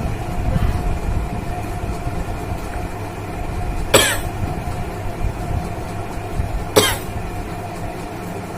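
A woman gives two short, sharp bursts of breath through the nose and mouth, about three seconds apart, while trying to set off a sneeze by tickling her nose with a thin stick. A steady low hum runs underneath.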